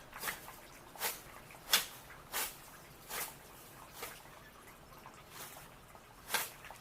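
Garden upkeep by hand: a series of about eight short, scratchy rustling scrapes at uneven intervals, roughly one a second, the sharpest a little under two seconds in.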